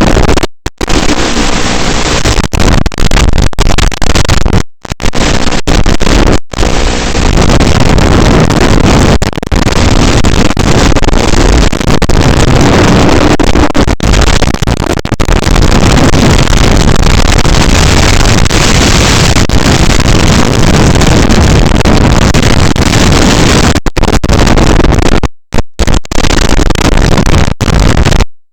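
Loud, rough rushing noise carried on an FPV drone's analog video link, a mix of hiss and motor-like drone, cut by several brief dropouts to silence, twice near the start and twice near the end.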